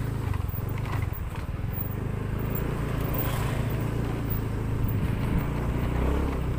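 Motor vehicle engine running steadily under way, with road noise; its note shifts lower near the end.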